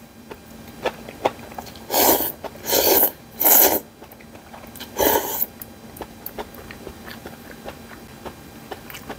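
A person slurping noodles from a bowl of gomtang (beef bone soup). There are four noisy slurps about two to five seconds in, the first three close together, with light chewing and soft clicks of chopsticks and spoon between them.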